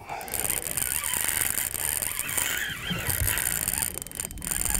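Spinning reel's drag whining in a wavering tone that comes and goes as a hooked fish pulls line; the drag is set too light to hold the fish.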